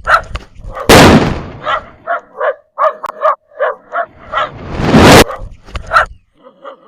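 A dog barking and yelping over and over, frightened, with two loud blasts from firecrackers going off: one about a second in and one about five seconds in.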